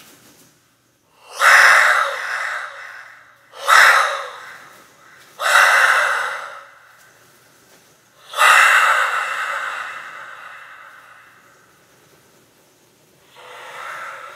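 Amplified breathy gasps into a microphone, five in all, each starting sharply and fading out slowly through the PA, with no low end.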